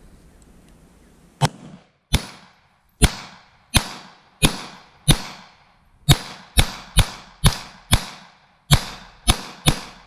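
A string of fourteen pistol shots from a Glock 25 firing .380 ACP, each a sharp crack with a short echo trailing off. The shots come about a second apart at first, then quicken to about two a second in the second half.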